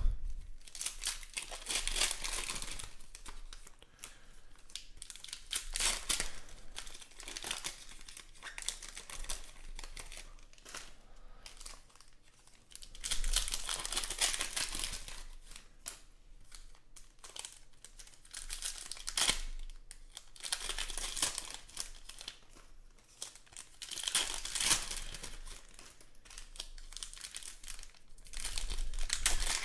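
Foil trading-card pack wrappers being torn open and crinkled by hand, in irregular bursts of crackling.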